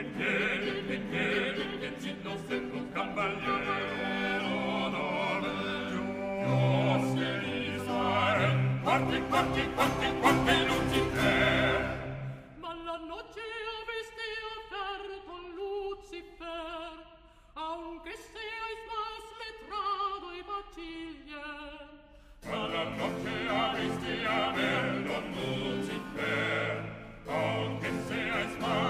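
Small vocal ensemble singing Renaissance polyphony in several parts. About twelve seconds in the lower voices drop out, leaving only the upper voices, and the full ensemble comes back in about ten seconds later.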